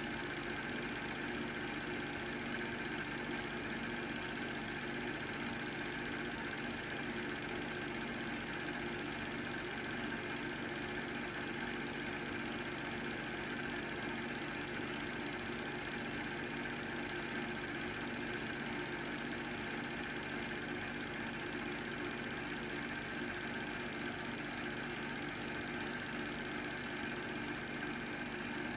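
Film projector running, a steady mechanical hum that does not change.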